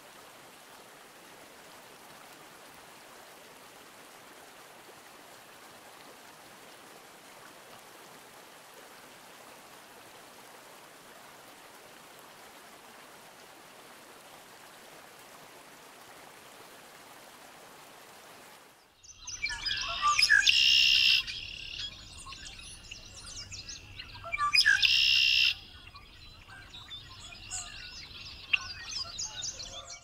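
Steady sound of running stream water, then, about two-thirds through, a recording of red-winged blackbirds. A male gives his loud 'o-ka-leeee' song twice, about four seconds apart, with shorter chirping calls between and after.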